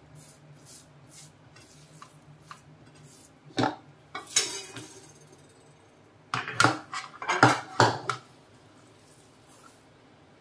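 Silicone spatula scraping coconut barfi mixture out of a nonstick pan, with clatter of the pan and spatula against metal kitchenware. A few sharp knocks come about three and a half and four and a half seconds in, and a burst of louder clattering comes between about six and eight seconds.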